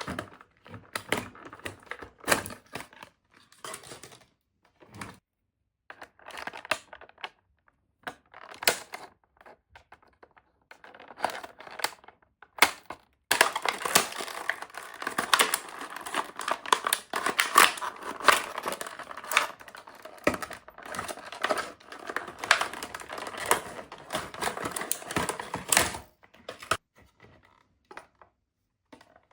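Toy packaging being handled and opened: scattered rustles and clicks, then, about halfway in, a long stretch of dense crinkling and tearing of packaging for some twelve seconds, ending in a few light taps.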